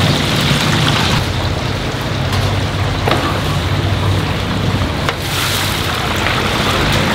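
Steady rumbling noise of a commercial frying kitchen, with a low hum under it and a few light clicks.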